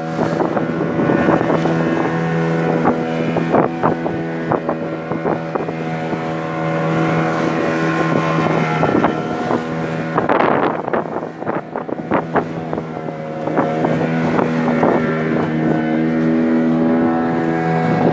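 Fishing boat's engine running steadily, with scattered knocks and bangs over it.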